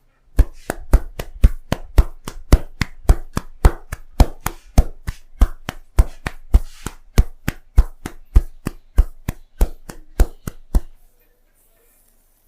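Tapping head massage: a barber's hands striking the head in a quick, even rhythm, about two loud slaps a second with lighter taps between. The strikes stop about 11 seconds in.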